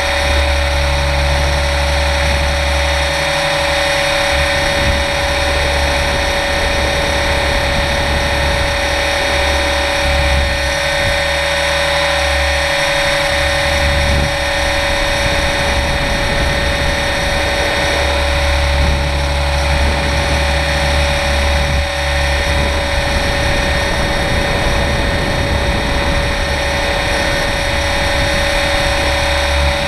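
Align T-Rex 700E electric RC helicopter in flight, heard from a camera mounted on it: the electric motor and drivetrain whine steadily with the rotor running, over a low rumble that comes and goes.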